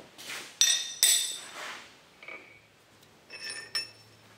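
Steel tools clinking and ringing against a steel anvil: two loud, ringing clanks about half a second and a second in, then a few lighter clinks toward the end.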